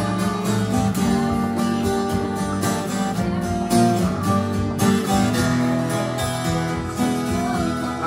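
Twelve-string Tagima acoustic guitar strummed in a steady rhythm. Full chords change every second or so.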